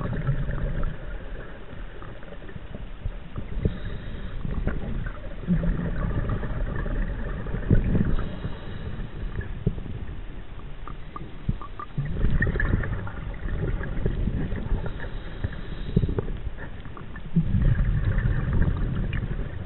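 Scuba diver breathing through a regulator, heard underwater from the chest: low bubbling surges of exhaled air every few seconds, about four in all, with faint hissing inhalations between them.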